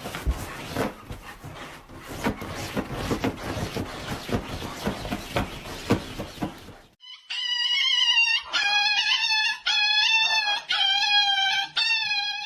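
Several seconds of rustling and clattering with many small knocks, then a loud, high-pitched animal call that wavers slightly in pitch and breaks into about six pieces over the last five seconds.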